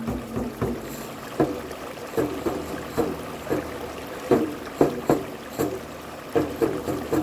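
Hand-held frame drum struck in a loose, uneven rhythm, two to three ringing strokes a second, over the steady rush of a rocky stream.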